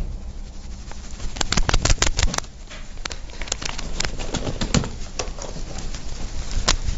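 Rustling and irregular clicks and knocks from a man's body and clothes shaking with a Parkinson's tremor, starting about a second and a half in. The tremor sets in because his deep brain stimulator has been switched off.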